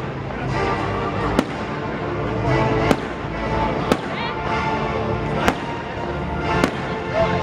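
Fireworks exploding in the sky: five sharp bangs, roughly one to one and a half seconds apart, over loud music that plays throughout.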